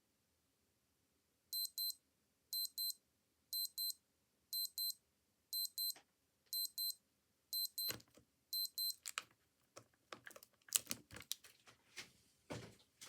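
Old watch alarm beeping: high-pitched double beeps about once a second, eight times. It is followed by a run of irregular clicks and knocks, the loudest of them about eleven seconds in.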